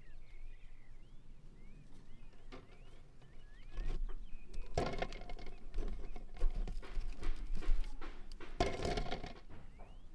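Eggs being washed by hand in water in a metal basin: water sloshing and splashing, with the eggs clicking against each other and the bowl, loudest about five and nine seconds in.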